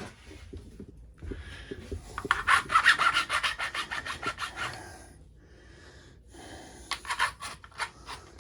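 Hand file scraping across a metal fitting in quick back-and-forth strokes, a long run and then a short second run, filing into its top to check the metal, which shows it to be brass.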